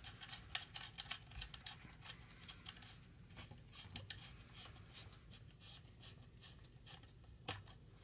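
Faint clicks and scratchy rubbing of coax connectors being handled and fitted as a dummy load is attached to an SWR/watt meter, with a few sharper clicks about half a second in and near the end.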